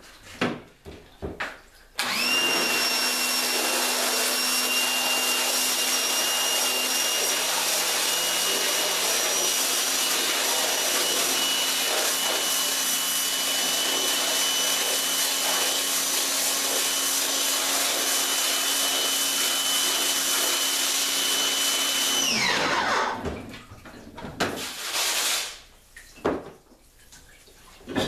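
Pressure washer running, its spray blasting ink and emulsion off a screen-printing screen: a steady hiss with a whine, starting about two seconds in. About twenty seconds later it shuts off, the whine falling away, and a few short knocks and scrubbing sounds follow.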